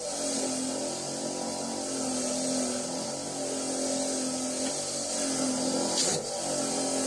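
Motor-driven wire wheel spinning with a steady hum while its wires scrub dirt and grime off the steel top jaw of a pipe wrench, giving a continuous hiss, with a brief harsher scrape about six seconds in.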